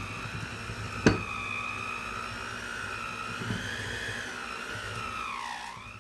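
Electric hand mixer running in a bowl of cookie dough, a steady motor whine that wavers slightly as the beaters work the flour in, then drops in pitch and dies away near the end as it is switched off. A sharp click about a second in.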